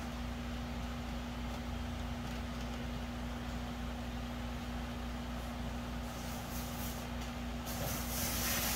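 Steady low hum with one constant tone from fish-room equipment running. In the last couple of seconds, a rustling scrape of hands on a taped cardboard box.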